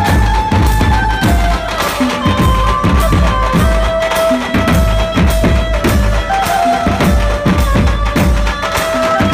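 Dhumal band music: drums beat a steady rhythm under a melody of long held notes. It is played loud.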